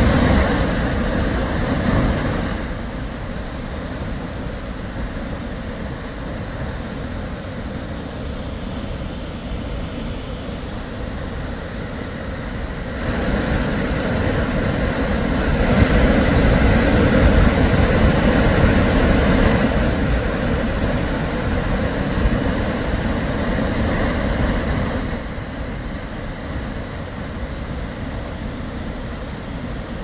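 Río Bonito waterfall and the whitewater below it, rushing as a steady, loud noise of falling water. It swells louder for about ten seconds in the middle, then settles back.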